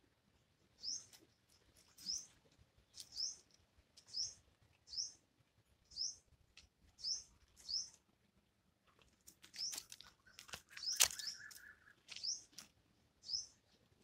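A small bird's short, high chirp, rising in pitch, repeated about once a second. About eleven seconds in there is a sharp click, the loudest sound, with a brief steady tone around it.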